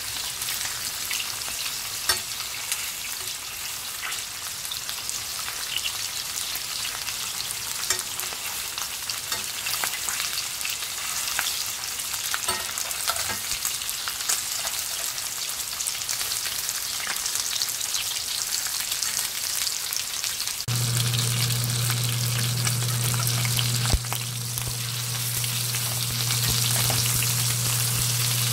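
Beef rib finger meat frying in butter in a stainless steel pan: steady sizzling with crackling spatter and occasional sharp ticks. A steady low hum starts about two-thirds of the way in.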